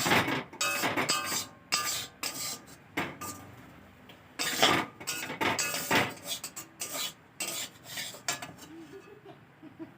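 Metal kitchen utensils clattering and scraping against a metal pot in quick, irregular strokes, some with a brief ring.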